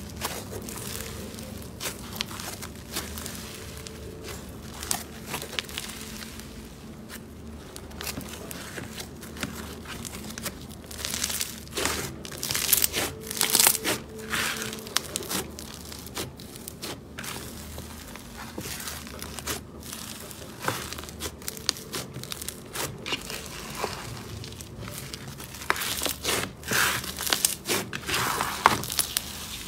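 Fluffy, snow-textured slime being stretched, torn apart and squeezed by hand, giving an irregular crackling and crunching. It is loudest in clusters a little under halfway through and again near the end.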